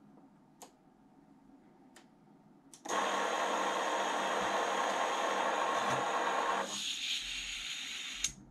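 Brushless motors of a 5-inch FPV quadcopter spinning with the propellers off: a steady whirring whine starts suddenly about three seconds in. After about four seconds the lower part drops away, leaving a thinner, higher whine until a sharp click near the end.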